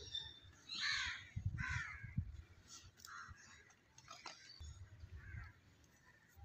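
Crows cawing: two louder caws about a second apart, then a few fainter calls.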